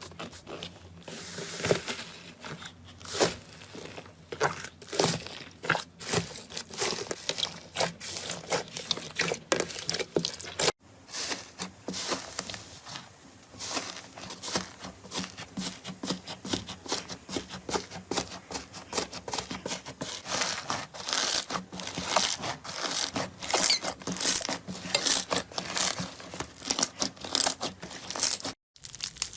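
Crunchy slime being squeezed and pressed by hand, giving dense, irregular crackling and popping. It breaks off abruptly twice, about 11 seconds in and near the end.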